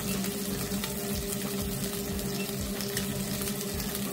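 Wagyu sirloin steak sizzling steadily in hot olive oil in a Lodge cast-iron pan, with fine crackles, over a steady low hum.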